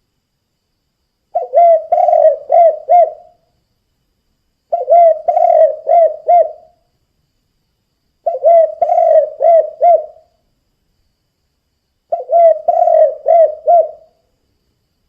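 Spotted dove (tekukur) cooing in its "kuk 2" song: four phrases, each a quick run of five or six coo notes lasting about two seconds, repeated every three and a half seconds or so.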